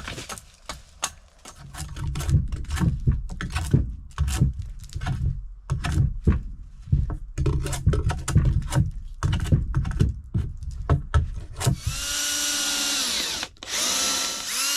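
A Craftsman hatchet chopping and hewing a pitch pine pole, quick irregular knocks with dull thuds at about two to three strokes a second. About twelve seconds in, a mini drone's motors take over with a steady multi-pitched whine that bends as they spin up, drops out briefly and starts again.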